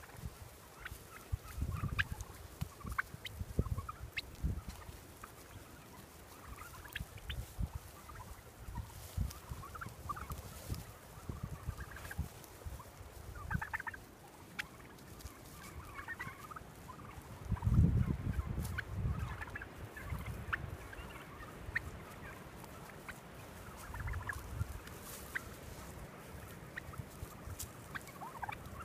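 A flock of heritage turkeys calling, with many short scattered calls overlapping. A low rumble runs underneath and is loudest about two-thirds of the way through.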